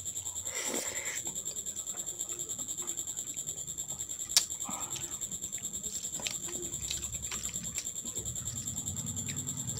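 Close-up sounds of eating dal and rice by hand: chewing and wet mouth noises, then fingers mixing rice and dal on a plastic plate, with many small clicks and one sharper click about four seconds in. A steady high-pitched whine runs underneath.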